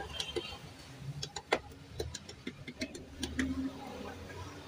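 Irregular sharp clicks and taps of a hand tool striking the edges of a stack of lead-acid battery plates and separators, knocking them into line, over a low steady hum.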